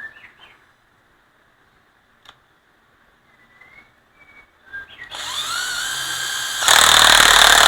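National EZ7202 cordless drill driver test-run with no load: the motor spins up with a rising whine about five seconds in, runs steadily, runs louder for about the last second, then stops abruptly.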